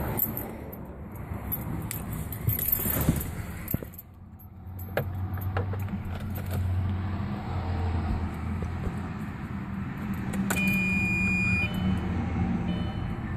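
Audi B5 S4's 2.7-litre twin-turbo V6 idling on a cold start with a misfire. Keys jangle in the first few seconds, the engine sound dips briefly about four seconds in and then settles into a steady low hum, and a single steady beep lasting about a second sounds past the middle.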